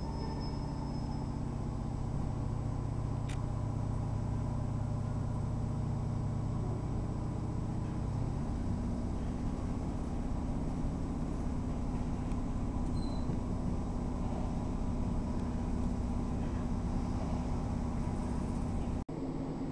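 Diesel passenger train heard from inside the carriage while moving: a steady low engine drone over running rumble, with the engine note changing about halfway through.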